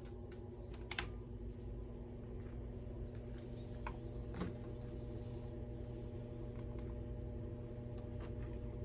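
Washing machine running: a steady motor hum of several tones, with scattered computer keyboard and mouse clicks on top, one sharp click about a second in.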